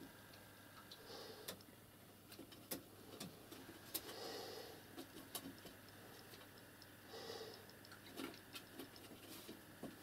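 White pigeons pecking at scattered sunflower seeds on a wooden ledge: faint, irregular sharp ticks and taps, with a few soft rustles in between.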